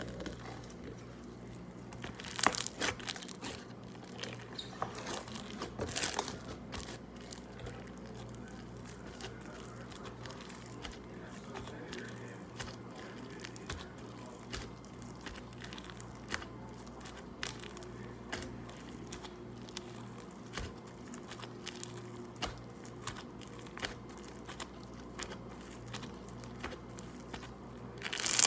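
Slime being squished and stretched by hand: irregular crackling and popping, with louder pops about two and a half and six seconds in.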